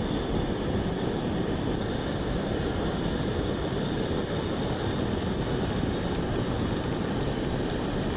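Propane camp stove burner running with a steady low roar under a frying pan of mushrooms; a higher sizzling hiss picks up about four seconds in.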